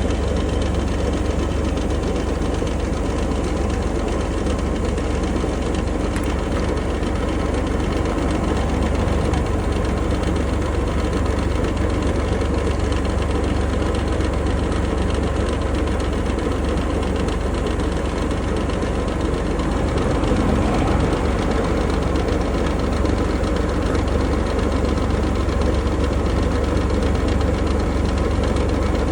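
2020 Range Rover Sport P400e plug-in hybrid running with a steady low drone and a rattling noise.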